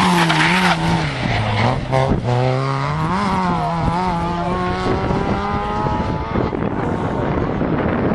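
Rally car going past on a special stage, its engine revving hard. The engine note falls as it brakes and shifts down, then climbs and wavers through the gears. The engine fades out about six seconds in, leaving a rushing noise.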